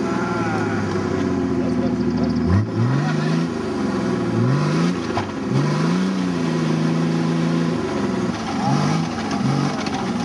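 A modified off-road truck's engine revving hard in repeated surges under load as it climbs a steep dirt bank with its wheels spinning. The revs rise and fall several times, hold high for a couple of seconds, then drop to two short blips near the end.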